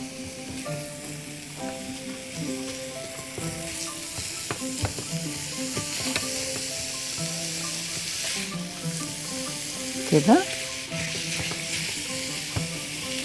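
Minced beef and chopped onion sizzling in hot oil in a nonstick pan, stirred and scraped with a spatula, with occasional light ticks of the spatula against the pan.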